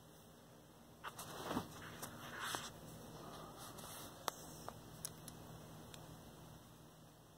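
Faint rustling and scuffing of a handheld phone being moved about, for a couple of seconds, followed by a few sharp, light clicks.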